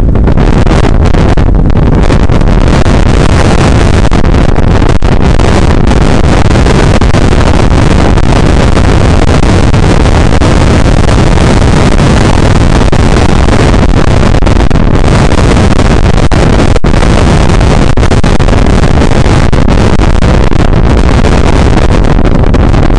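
Loud, unbroken roar of wind buffeting the microphone, mixed with the running vehicle's road noise, so loud that the recording is clipped throughout.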